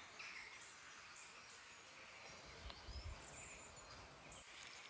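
Near silence: faint outdoor ambience with a few faint, short, high bird chirps.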